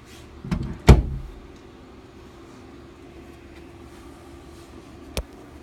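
Two hard knocks close together, the second a loud, sharp smack, then a single short click near the end, over a low steady hum.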